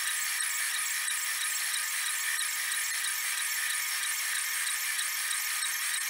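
Delta 3D printer printing a part: a steady, high-pitched whir from its motors as the print head moves over the piece.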